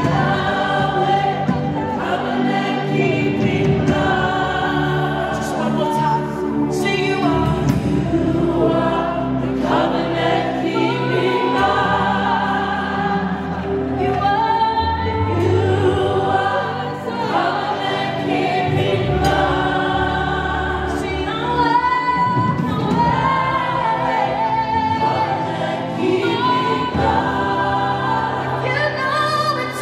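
Live gospel worship music: a woman singing lead with a backing choir over a band, in continuous sung phrases over sustained low notes.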